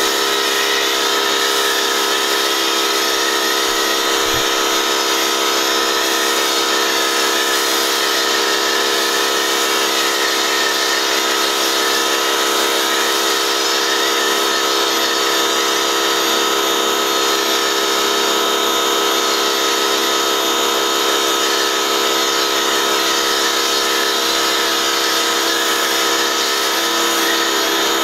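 Pressure washer running steadily, its motor whining with a constant tone while a foam cannon hisses out soap foam onto a car.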